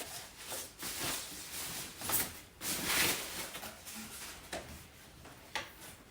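Packaging being handled while a robot vacuum is lifted out of its box: uneven rustling and crinkling with a few light knocks, the loudest about two and three seconds in.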